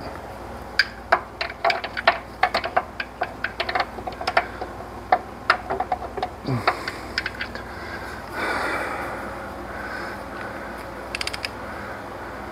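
Hand tools working on metal engine parts: a run of sharp, irregular metallic clicks and taps for several seconds, then a short rapid cluster of clicks near the end.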